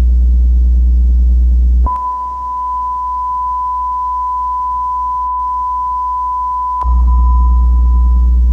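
Mock emergency alert attention tone: a single steady high beep near 1 kHz held for about five seconds. A deep, steady low drone stops as the tone begins and returns as it ends.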